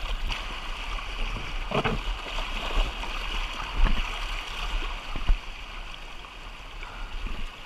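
Fast river current rushing and washing around a swamped, capsized canoe, a steady hiss of moving water with a low rumble, broken by a few brief thumps.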